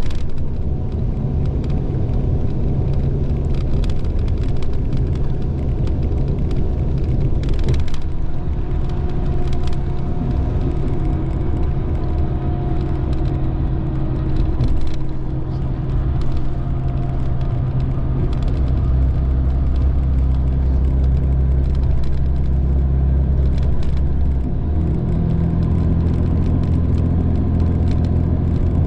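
Inside the cabin of a Mitsubishi Fuso Aero Ace highway coach cruising on the expressway: a steady low diesel engine drone with road and tyre noise. The engine note shifts a couple of times.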